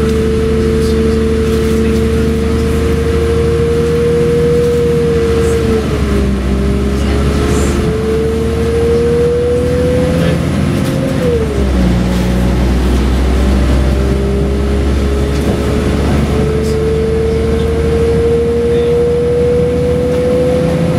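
Diesel train heard from inside the carriage as it accelerates: an engine and transmission whine climbing slowly in pitch, dropping back twice, about six and eleven seconds in, and climbing again, over a steady low rumble of engine and wheels.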